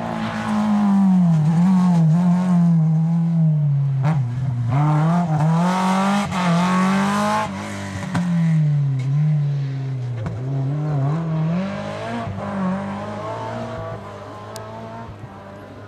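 Rally car engines at full throttle on a special stage, the engine note climbing and dropping again and again through gear changes and lifts. The sound fades away near the end.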